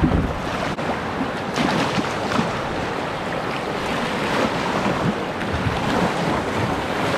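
Whitewater rapid rushing around a kayak, a steady rush of fast water with irregular splashes at the bow.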